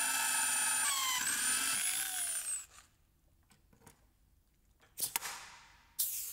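Electric drill running steadily as it drills through a steel frame profile; its whine shifts and falls in pitch as it slows, then stops about two and a half seconds in. Near the end, a blind rivet tool sets rivets with two sharp snaps about a second apart.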